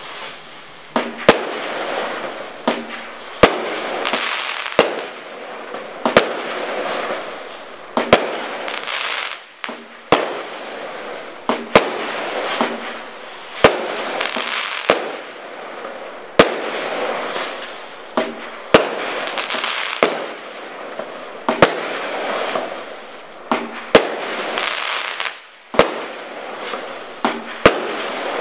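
Black Cat Zeta PyroBlock firework cake firing shot after shot: a sharp launch thump every second or two, each followed by about a second of crackling noise from the burst.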